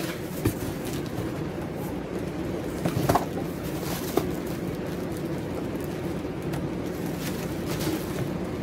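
Cardboard box and plastic wrapping handled as a plastic-wrapped inline duct fan is lifted out of its box, with a few short knocks, the loudest about three seconds in. A steady low hum runs underneath.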